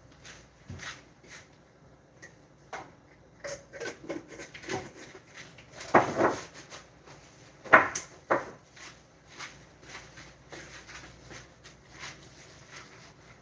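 Scattered knocks and clatter of kitchen things being handled, with the loudest bangs about six and eight seconds in.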